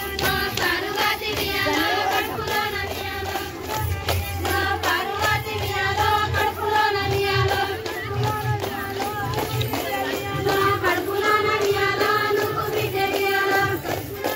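A group of women singing a Bathukamma folk song together, with steady rhythmic hand clapping keeping time.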